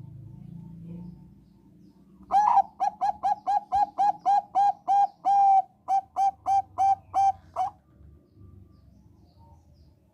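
Zebra dove (Thai 'perkutut bangkok' line) singing a rapid run of about twenty short, evenly pitched cooing notes, roughly four a second. It starts about two seconds in and lasts about five seconds.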